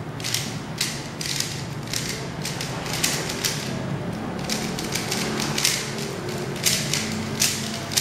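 Moyu Aolong v2 3x3 speedcube being turned fast during a speedsolve: quick, irregular plastic clicks and clacks of the layers snapping round, several a second.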